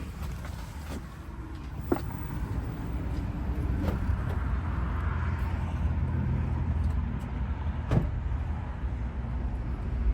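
A motor vehicle running with a steady low rumble, with a few sharp clicks or knocks about two, four and eight seconds in.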